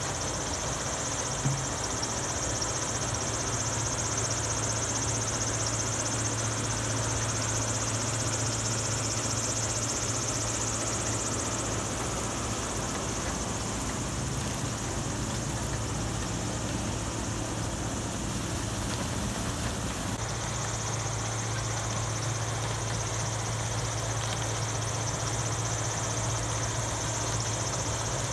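Steady machinery noise: a constant low hum under a high whine, running without a break, with a slight change in its make-up about twenty seconds in.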